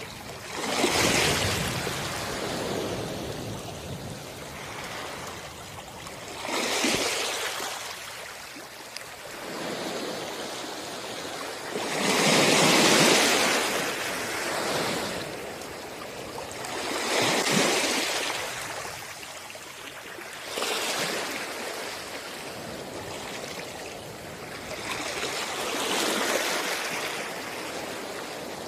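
Sea waves washing onto a shore, each surge rising to a rush and drawing back, about one every four to six seconds; the biggest breaks about halfway through.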